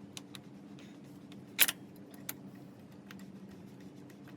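Metal tools and parts clinking and clicking during reassembly under the hood, with one sharp, louder clank about a second and a half in, over a steady low hum.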